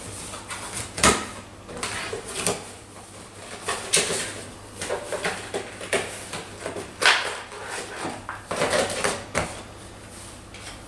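Cardboard packaging being handled: a box opened and its contents slid and lifted out. Three sharp knocks come about three seconds apart, with rustling and scraping of card between them.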